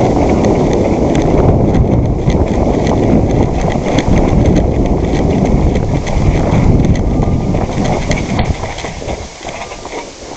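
Rapid footsteps of a player running, with a heavy rumble on the body-worn microphone, fading out near the end.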